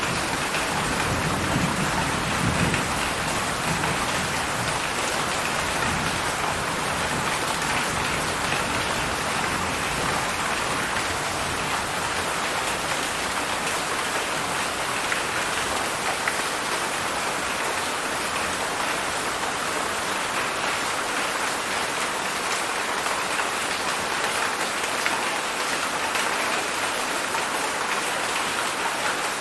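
Heavy rain falling steadily, a dense, even hiss of drops, with a low rumble in the first few seconds.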